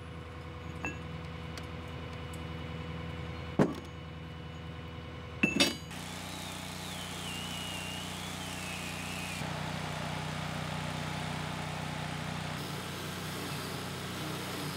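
Steady engine hum from nearby machinery, with a few sharp metal clinks in the first six seconds as the rusty saddle casting and its roller bearings are handled. After that, an angle grinder cleaning the casting gives a rougher noise with a high whine that wavers up and down for a few seconds, and then a steady hum.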